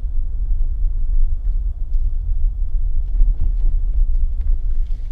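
Mercedes-Benz W124 300E-24 on the move, heard from inside the cabin: a steady low road and drivetrain rumble.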